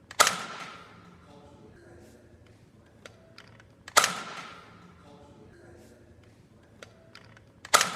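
Toy Nerf blaster fired three times, about four seconds apart, each shot a sharp crack with a short ringing tail, with a few faint clicks in between.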